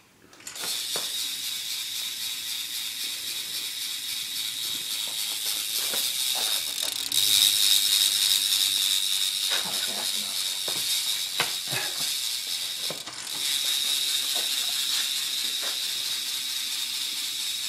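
Proper Bike Co. BMX rear cassette hub freewheeling as the wheel spins, its pawls clicking fast enough to blur into a steady buzzing ratchet. The sound gets louder about seven seconds in and drops briefly about two-thirds of the way through before picking up again.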